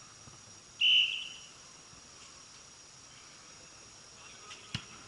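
A referee's whistle: one short, loud, steady high blast about a second in, ringing on briefly in the dome. A single sharp thud comes near the end.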